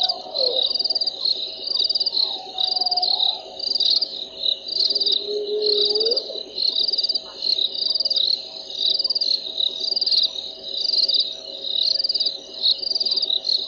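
Insects chirping in a steady, rhythmic high-pitched chorus, pulsing about twice a second, over a lower pulsing drone. In the first half come three short whistle-like glides from an unidentified animal: one falling, one level, and one that rises at its end.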